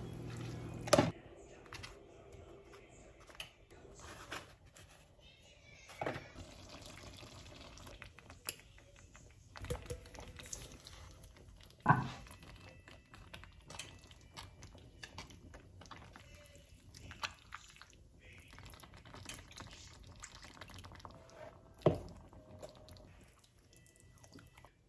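Kitchen cooking sounds: scattered sharp clinks and knocks of utensils and cookware, about four loud ones, with some dripping and liquid sounds in between.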